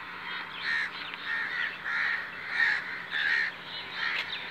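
A bird calling over and over, about six short calls in a row, one roughly every half second.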